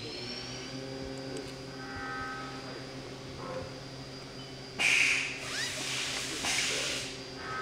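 Two sharp hissing bursts, a short loud one about five seconds in and a longer one about six and a half seconds in, over a steady low hum.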